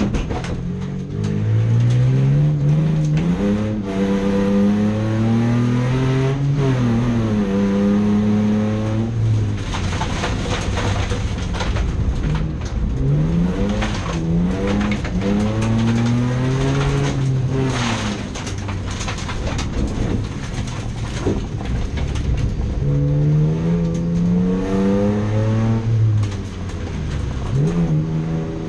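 Racing car engine revving hard, its pitch climbing and falling back again and again as it accelerates and lifts off, with scattered sharp clicks and knocks over it.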